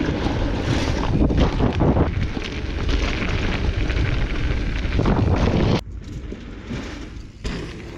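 Wind buffeting the microphone and the rumble and rattle of a mountain bike ridden fast down a dirt trail. The noise drops off sharply about six seconds in.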